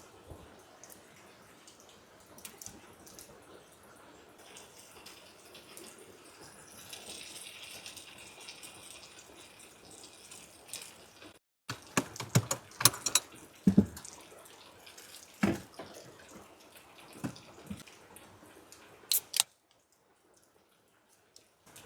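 Faint running water, then after a cut a run of sharp knocks and clicks, the loudest sounds here, as objects are handled, ending in silence.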